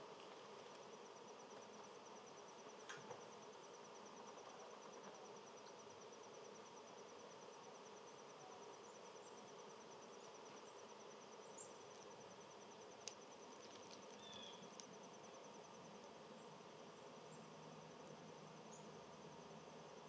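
Faint, steady high-pitched insect trill, a fast run of even pulses that carries on for nearly the whole stretch, with a couple of light clicks and one brief chirp.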